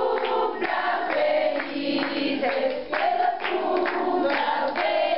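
A group of people singing a birthday song together without accompaniment, holding long notes.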